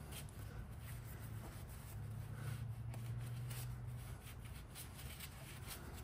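Faint rustling and scuffing of a paper shop towel being wiped over rubber tire tread, over a steady low hum.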